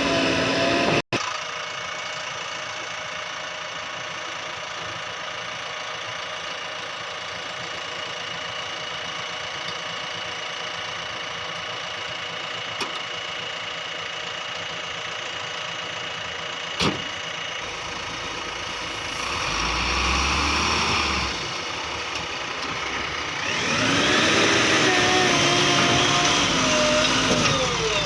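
Heavy diesel engine running steadily at low revs, then rising and falling in pitch as it works harder over the last few seconds.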